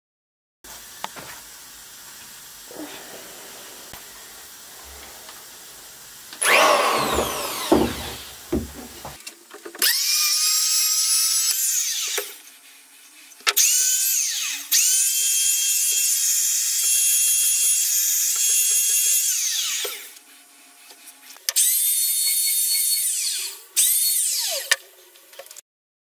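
Small corded electric power tool run in five separate bursts. Each one spins up with a rising high-pitched whine, holds steady for one to six seconds and winds down when released. A loud sweep of falling tones comes a little past a quarter of the way in.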